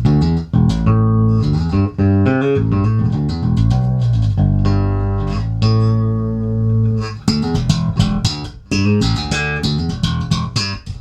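Spector Legend Custom 5-string electric bass with worn, year-old D'Addario Pro-Steel roundwound strings, played through a Warwick TubePath 10.1 tube amp and WCA 410 cab. It plays a bass line of plucked notes, holding some notes long in the middle and closing with a quick run of short notes. The tone is bright, with a high boost on both the bass's EQ and the amp and the mids pushed up, showing the old strings still sound bright.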